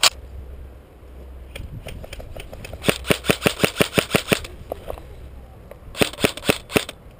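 Airsoft rifle firing two rapid bursts of shots about two seconds apart, each lasting about a second, with a sharp single click at the very start.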